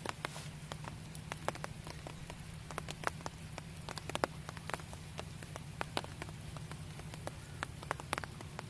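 Heavy rain falling on pond water: a steady rush with many sharp, irregular ticks of drops striking close by.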